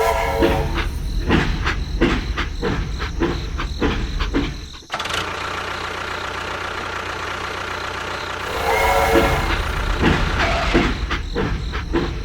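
A small machine running with a steady low hum and a fast, uneven clatter of clicks. The sound breaks off abruptly about five seconds in and then resumes. A short pitched tone sounds at the start and again about nine seconds in.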